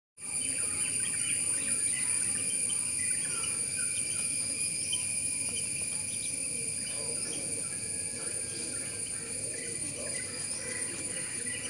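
A steady outdoor insect chorus of several high ringing tones held without a break, with short scattered chirps over it.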